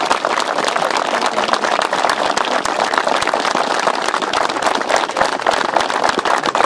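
A small crowd applauding, many hands clapping steadily at a fairly even level.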